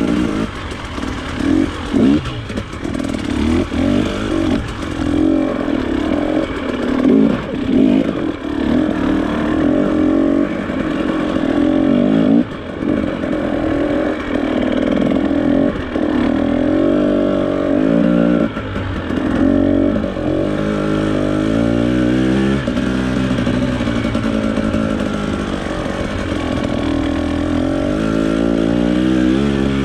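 Off-road trail motorcycle engine being ridden, its pitch repeatedly rising under acceleration and dropping back, with knocks and clatter over rough ground, most of them in the first half.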